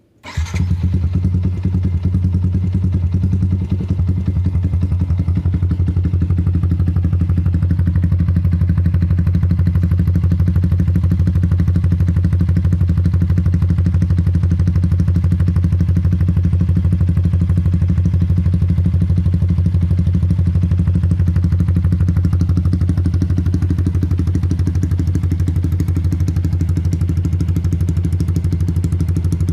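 Yamaha MX King 150's single-cylinder four-stroke engine starting up and then idling steadily through a ROB 1 aftermarket racing exhaust, with a deep, even exhaust beat.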